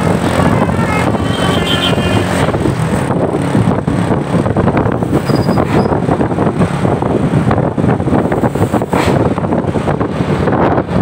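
A tour bus passing close by, with loud engine and road noise and wind buffeting the microphone. In the first two seconds or so, a multi-tone Basuri 'telolet' horn plays stepping notes and then stops.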